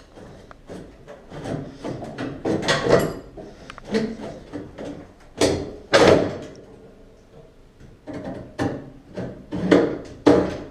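A steel front fender on a 1965 Ford Falcon being worked loose and pulled free: irregular metal clunks and knocks, with two sharp bangs about halfway through.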